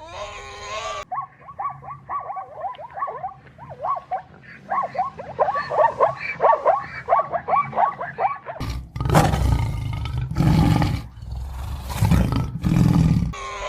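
Tiger roaring: three deep roars in the second half. They come after a long run of short, quick calls that fall in pitch.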